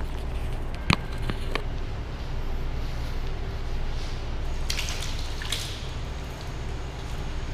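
Water running from a washroom tap and splashing as a face is washed, with a steady low hum underneath. A sharp click about a second in, then a few quicker splashes later on.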